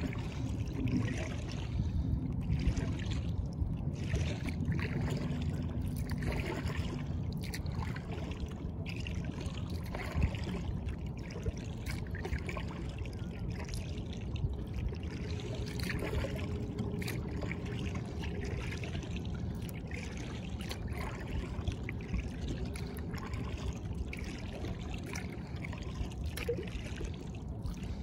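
Lake water lapping and trickling against the hull of a kayak in irregular small splashes, over a steady low rumble.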